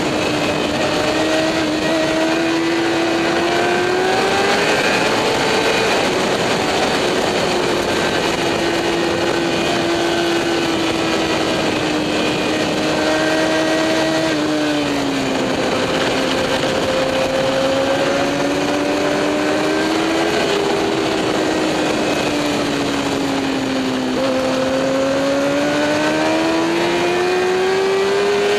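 Motorcycle engine at speed on a racetrack, its note holding, dropping and climbing again with throttle and gear changes, under heavy wind rush.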